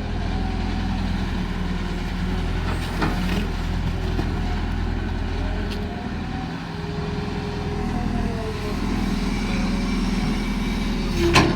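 Caterpillar hydraulic excavator's diesel engine running steadily under load while digging, with a whine that rises and falls as the hydraulics work. Sharp knocks come about three seconds in and again, louder, near the end.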